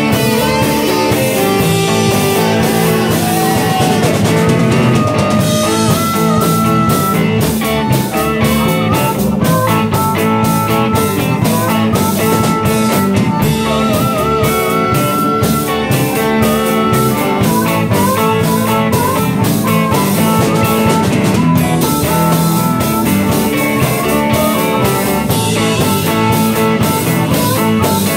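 Live blues-rock band playing an instrumental passage: electric guitar, bass guitar and drum kit, with a saxophone and then a harmonica taking the lead.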